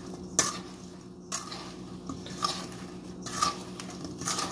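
Spatula scraping and knocking against a stainless steel mixing bowl as sliced apples are tossed with sugar, in strokes about once a second.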